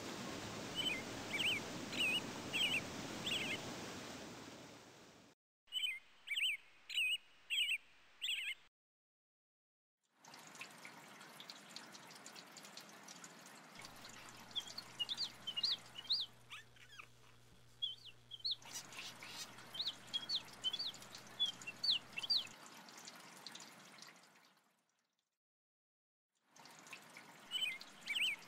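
Small birds chirping in quick short phrases over a bed of trickling, running water, cut in short stretches with two brief silent gaps.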